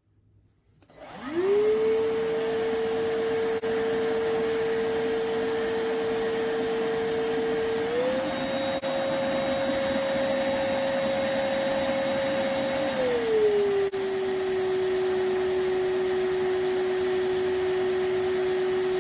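The iwoly C150 cordless stick vacuum's motor spins up with a rising whine about a second in, then runs steadily. Its pitch steps up about eight seconds in and drops lower about five seconds later.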